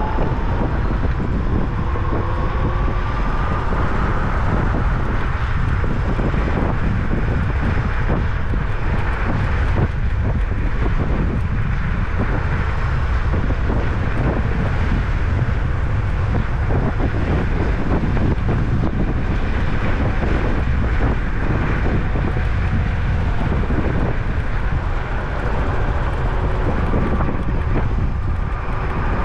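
Apollo Phantom V2 electric scooter riding along a paved path: steady wind buffeting on the microphone and tyre rumble, with a faint motor whine rising in pitch over the first few seconds as it picks up speed.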